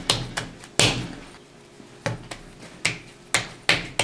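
Sharp knocks and taps on a marble worktop as a block of puff pastry dough is handled with a wooden rolling pin and hands. There are about ten in all, with a pause of about a second in the middle.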